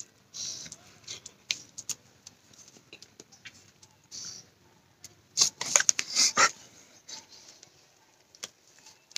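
Close-up mouth noises of a person eating instant Maggi noodles: scattered chewing and smacking clicks, with a louder run of slurps and smacks about five and a half to six and a half seconds in.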